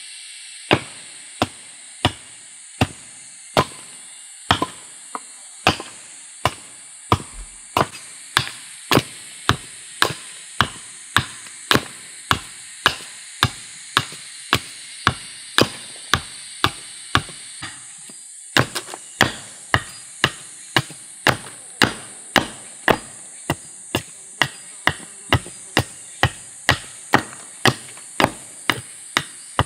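Hatchet chopping into a green log held upright, hewing slabs off one face: a long run of sharp, evenly paced blows, a little slower at first and then steady at about one and a half a second.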